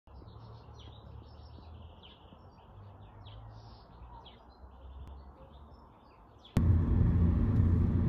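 Small birds chirping and singing over a faint low rumble. About six and a half seconds in, it cuts abruptly to loud, steady road noise from a moving car.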